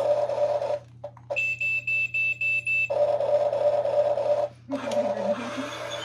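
Remote-control toy excavator running: a steady electric whine from its motors, broken about a second in by a run of rapid high-pitched electronic beeps, about four a second, lasting a second and a half.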